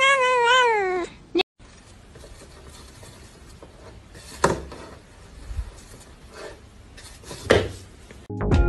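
Tabby cat's long, drawn-out meow, wavering up and down in pitch, ending about a second in. Then faint room noise with two soft knocks.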